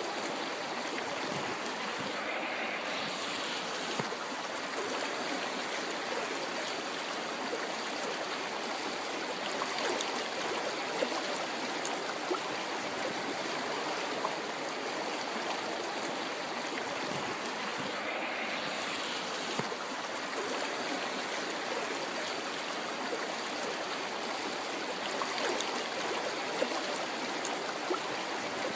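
A river flowing: a steady rush of water with small splashes and trickles here and there.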